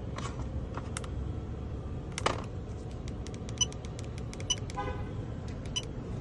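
Scattered sharp clicks of key fob buttons being pressed, then a 2020 Ram pickup beeps once briefly about five seconds in: the lock/unlock confirmation chirp, the sign that the newly programmed fob is working.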